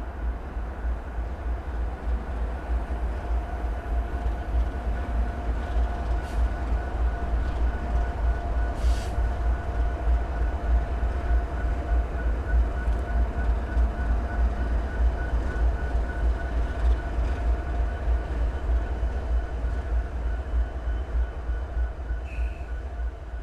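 Train rumbling past: a steady, pulsing low rumble with a steady whine over it, growing louder toward the middle and fading near the end.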